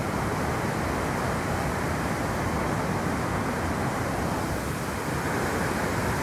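Steady rushing noise with a fluctuating low rumble, the outdoor ambience picked up by a phone microphone on a bush path.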